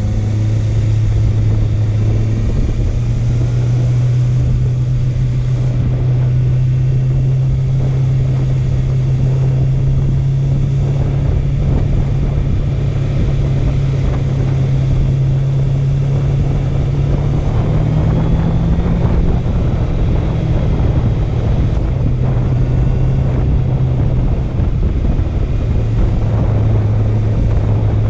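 Honda CB650F's inline-four engine running at a steady cruise, its note stepping up slightly a few seconds in and again past the middle, then settling lower near the end. Wind rushes over the microphone throughout.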